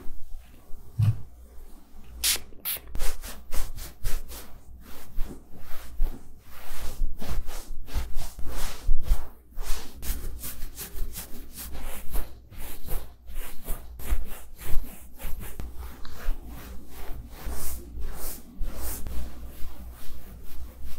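A knit glove rubbing through a Shiba Inu's thick fur in quick, repeated close-up strokes: a dry, brushy swishing, several strokes a second.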